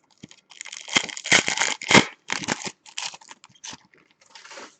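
Foil wrapper of a 2015-16 Upper Deck Artifacts hockey card pack being torn open and crinkled: a dense run of crackling rustles, loudest in the first half, breaking into shorter rustles near the end.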